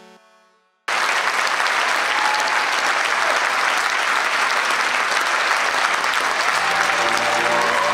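Theatre audience applauding: after a fading sustained chord, loud applause starts abruptly about a second in and holds steady. Faint music begins under the applause near the end.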